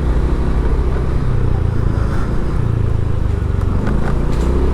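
Steady road traffic noise, a continuous low rumble of vehicles.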